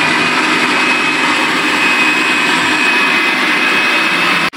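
Electric food chopper running steadily with a high whine, coarsely chopping capsicum, green chillies, onion and coriander. The sound briefly drops out near the end.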